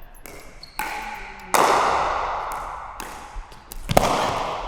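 Pickleball rally: a plastic pickleball struck by a paddle and a frying pan, three sharp hits about a second or more apart, each echoing in a large hall.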